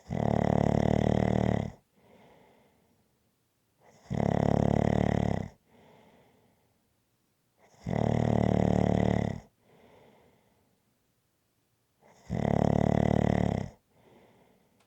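Rhythmic snoring: four loud snoring breaths in, about four seconds apart and each under two seconds long, every one followed by a much softer breath out.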